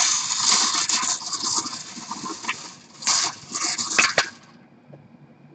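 Small wire bingo cage being turned by hand, its numbered balls tumbling and rattling against the mesh. The rattle stops about four and a half seconds in.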